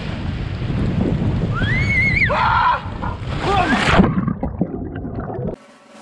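Splashing and churning water as a swimmer thrashes in a pool after jumping in, with wind on the microphone and a high, rising-then-falling yelp about two seconds in. After about four seconds the sound goes muffled and bubbly underwater, then drops away.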